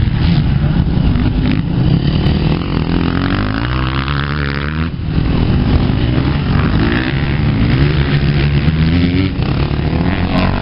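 Several motocross dirt bikes racing on the track, their engines revving up and dropping off again and again, the pitch rising and falling as they accelerate and shift.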